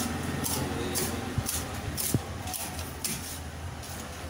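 Heavy fish knife chopping through a fish into a wooden block: two sharp knocks, about a second and a half in and again just after two seconds, over a steady background hum.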